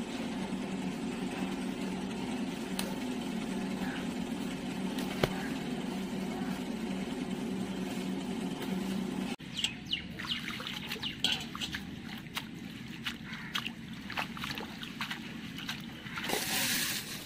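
A steady low hum with a few clicks; then, about nine seconds in, hands stirring neem leaves in a steel bowl of water, with splashing and trickling that grows louder near the end.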